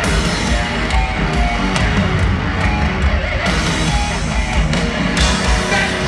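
Heavy metal band playing live over a stadium PA, with distorted electric guitar, bass and drums, heard from within the crowd.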